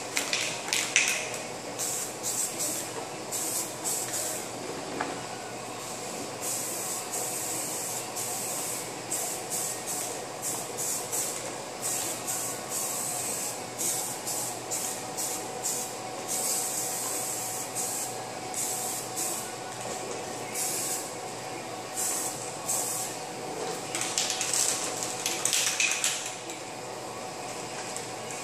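Aerosol spray paint can hissing in repeated bursts, some short and some held for a second or more, as paint is sprayed onto the bare steel radiator support.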